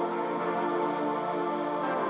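Background music: a soft ambient synth pad with sustained held chords.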